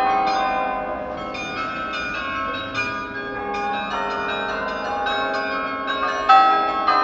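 Carillon bells played from a lever console, sounding a tune: many bell notes at different pitches struck in quick succession, each ringing on and overlapping the next.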